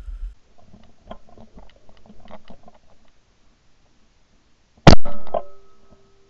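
A single shotgun shot about five seconds in, fired at a flying rooster pheasant and hitting it, with a smaller crack just after. Before it there are a few seconds of faint scattered clicks.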